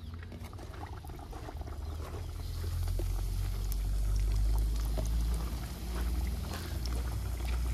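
Folded pastry pieces sizzling and crackling in hot oil in an iron karahi as they are dropped in one after another; the sizzle grows louder a couple of seconds in as more pieces go in. A steady low rumble runs underneath.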